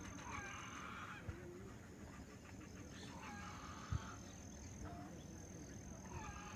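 Geese honking: three separate calls a few seconds apart.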